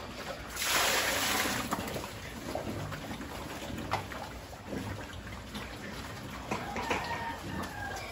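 Liquid poured from a bucket into a pig trough in a brief splashing rush about a second in, followed by pigs slurping and eating at the trough with scattered wet clicks.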